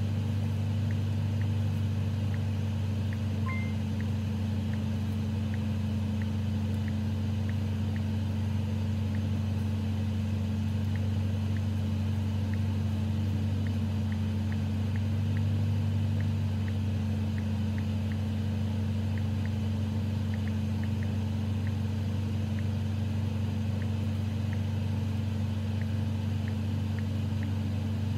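BMW M5 Competition's 4.4-litre twin-turbo V8 running at a steady low, even note, with no revving, and a faint regular ticking about twice a second.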